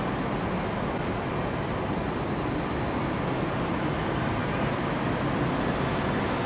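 Two-car KiHa 47 diesel railcar set pulling slowly out of the platform, its diesel engine running steadily under load as it moves off.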